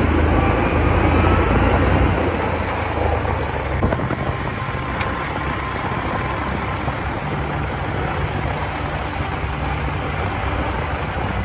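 Kawasaki utility vehicle's engine running steadily as it drives along a gravel road, with a constant rush of tyre and road noise.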